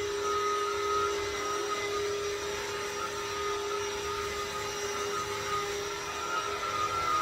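Vacuum cleaner running steadily, its motor giving a constant whine over a hiss of rushing air.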